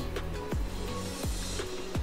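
Background music with a deep kick drum beat under a steady bass line; a hissing swell builds in the high end through the second half.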